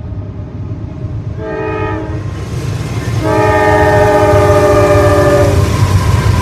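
Diesel freight locomotives approaching and passing, their multi-note air horn sounding a short blast about a second and a half in, then a longer blast of about two and a half seconds. A low engine rumble grows louder as the locomotives go by.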